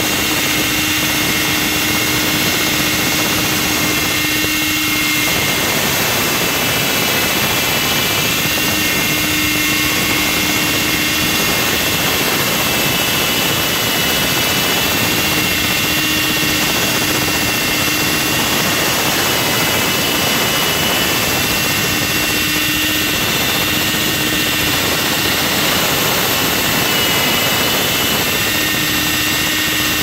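Hydraulic wall saw running its large diamond blade through concrete: a loud, steady drone with a high whine, and a lower hum that comes and goes about every six seconds.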